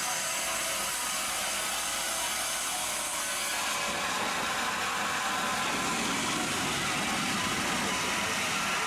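Wood-processing machinery running, giving a steady, even rush of noise.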